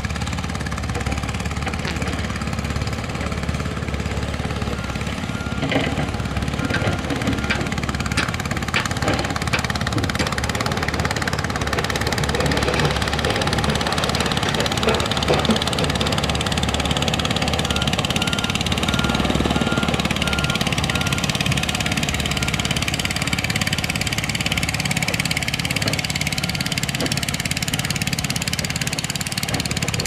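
Diesel engines of heavy construction machinery running steadily, with scattered knocks and clanks. A high, evenly repeated beeping sounds twice, each time for a few seconds.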